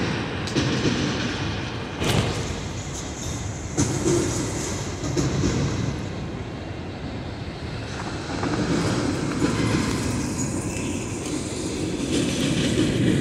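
Freight train cars rolling past, a steady rumble of steel wheels on rail with sharp clacks and knocks at irregular intervals.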